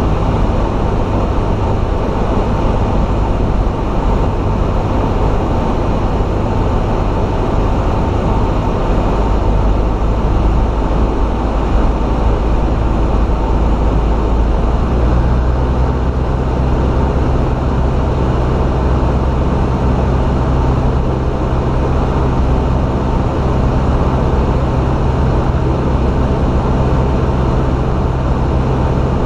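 Engine and propeller of a small high-wing training aeroplane in flight, a loud steady drone heard from inside the cabin. Its low tone changes about halfway through.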